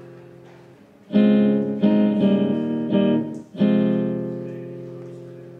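Nylon-string classical guitar strumming chords with no singing. A chord fades out, a new chord is struck about a second in, and it changes quickly a few times. Another chord is struck at about three and a half seconds and left to ring.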